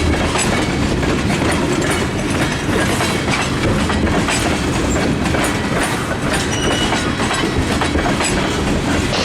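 Freight train of tank cars rolling slowly over jointed rail, the wheels clicking steadily over the rail joints with a continuous rumble.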